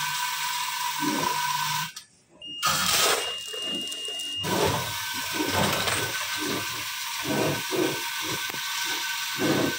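Automatic screw and nail pouch packing machine running: a steady hum and whine with a knock about a second in. The sound cuts off suddenly near two seconds. Machine noise with a high whine resumes, then irregular mechanical knocks.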